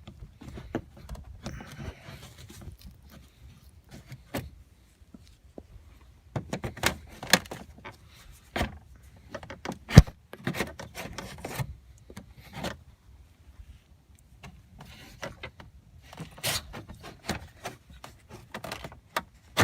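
Plastic door trim of a 2003 Chevrolet Silverado being pried off little by little: scattered clicks, knocks and rubbing as its clips pop loose, with a sharp snap about halfway through and another at the very end.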